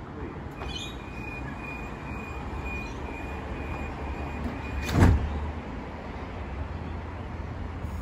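Door-closing warning tone on a Sydney Trains OSCAR H set, a high steady tone sounding for about four seconds as the passenger sliding doors shut, over the stationary train's low hum. A single loud thump follows at about five seconds.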